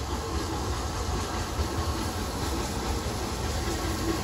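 Southern Railway Merchant Navy class steam locomotive 35028 'Clan Line' drawing slowly into the station with its train: a steady low rumble of locomotive and coaches on the rails, growing a little louder as it nears.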